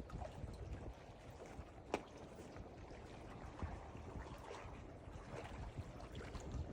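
Ocean water sloshing and gurgling, uneven and fairly quiet, with one sharp click about two seconds in.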